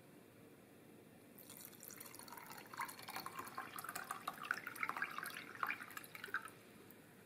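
Water poured from a glass measuring cup into a small stainless steel saucepan of sugar and lemon peel, splashing and trickling. It starts about a second and a half in and stops near the end.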